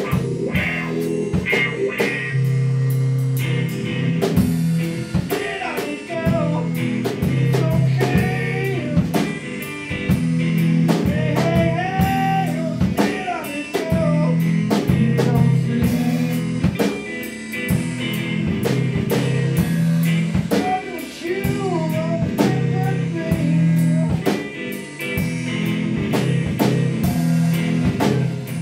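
A guitar-and-drums duo playing live: electric guitar and a full drum kit, with a man singing over them from about five seconds in.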